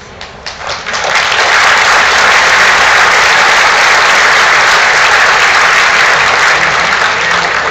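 Audience applauding: a few scattered claps build within about a second into loud, steady applause that starts to fade near the end.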